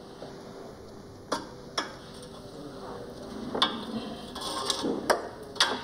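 Metal clinks and knocks of a VW Golf GTI gear linkage main shaft being fitted by hand to the car's underside: two sharp knocks, then a run of clinks and rattles from about halfway through.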